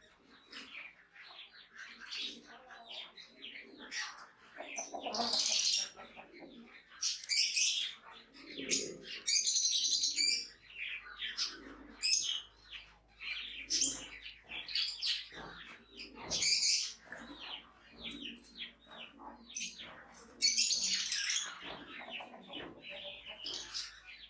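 Birds chirping and calling in many short, high notes, with several louder bursts of calls.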